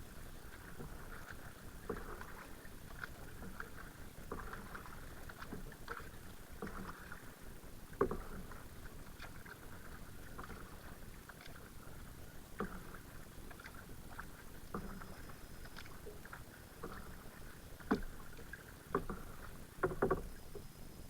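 Kayak being paddled, with faint water sounds from the paddle and scattered knocks, the loudest about eight seconds in and a few more near the end.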